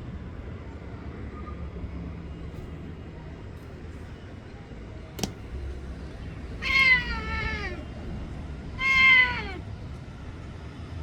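Domestic cat meowing twice, each call falling in pitch, the first about a second long and the second shorter. A sharp click comes a little before the first meow, over a steady low rumble.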